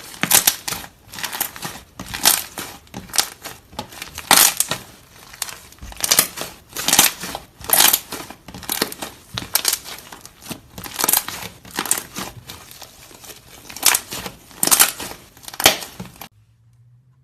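Slime being squeezed and pressed by hand, giving a fast run of crisp pops and crackles, several a second, that stops suddenly about a second before the end.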